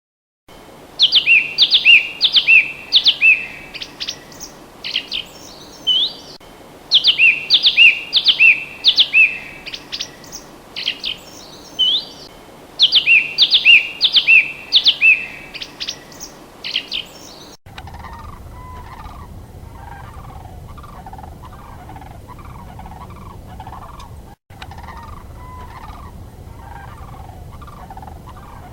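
A songbird singing phrases of four or five quick descending whistles, repeated about every six seconds with chirps in between. After an abrupt cut, a different animal gives lower repeated calls, about two a second, over a low rumble.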